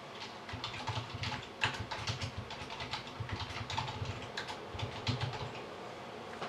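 Typing on a computer keyboard: irregular key clicks, several a second, with pauses between runs of keystrokes.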